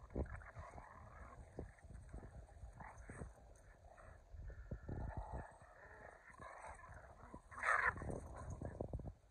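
Keeshond and Boston Terrier playing rough tug-of-war: dog vocal noises over scuffling paws on grass and dry leaves, with one louder, sharp burst about three quarters of the way through.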